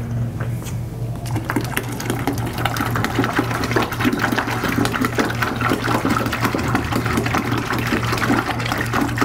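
Water poured from a plastic gallon jug splashing into a plastic fermenting bucket of wort, a continuous pouring stream that builds up over the first second or two, topping the batch up to five gallons. A steady low hum runs underneath.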